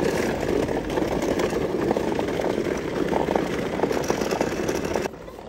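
Hard plastic wheels of a toddler's push-along ride-on car rolling over rough asphalt: a steady rattle that cuts off suddenly near the end.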